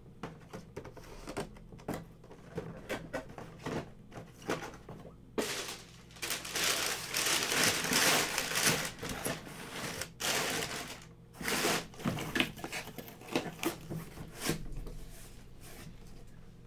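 Trading cards and their packaging being handled: light clicks and taps, with a longer stretch of rustling in the middle.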